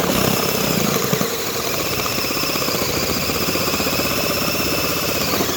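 Cordless drill spinning an adjustable drywall hole cutter with a dust-catching cup, its blades cutting into a ceiling for a recessed light. A steady motor whine runs over a fast chatter from the blades.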